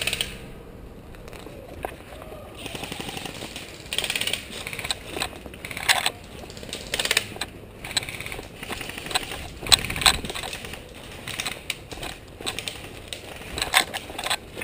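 Footsteps crunching irregularly through dry leaf litter and twigs while moving quickly, with sharp uneven crunches and clicks.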